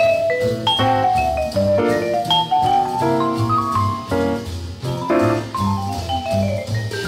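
Late-1940s small-group bebop jazz recording: a vibraphone solo of quick, mostly descending runs of ringing notes over a walking bass and drums.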